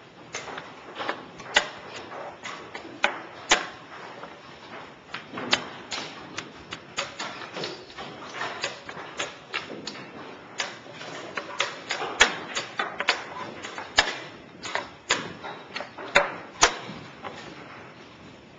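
Chess pieces being set down and slid on a board and a chess clock's buttons being pressed in quick blitz play: a run of irregular sharp clicks and taps, several a second. The loudest clicks come in the second half.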